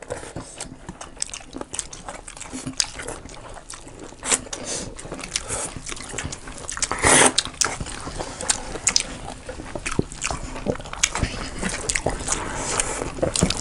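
Close-miked chewing and wet mouth smacks of people eating a rice-and-curry meal, with many small clicks and one louder burst about seven seconds in.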